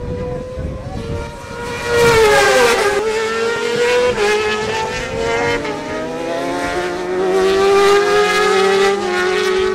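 Racing superbike engine at high revs. It is loudest about two seconds in, where its pitch falls, then its pitch climbs steadily as the bike accelerates along the track.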